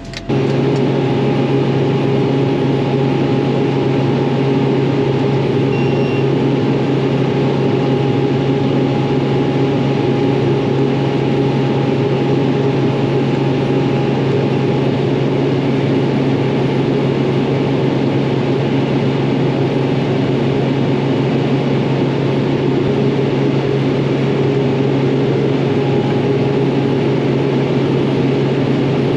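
Farm vehicle engine and cab drone, running at a steady, unchanging speed. It comes in abruptly just as the sound begins.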